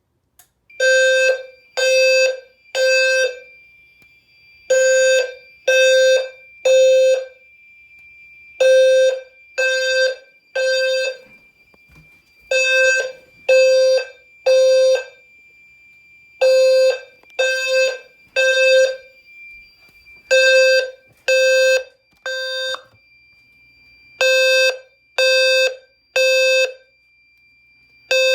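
Fire alarm low-frequency sounder sounding in the temporal-three evacuation pattern: three half-second buzzy low tones about a second apart, then a pause, repeating about every four seconds. This is the alarm signal from a pull-station activation. A faint steady high-pitched tone runs underneath for most of the time.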